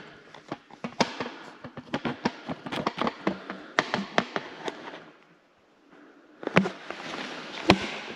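Irregular sharp clicks and crackles in quick, uneven succession, stopping for about a second just past the middle before starting again.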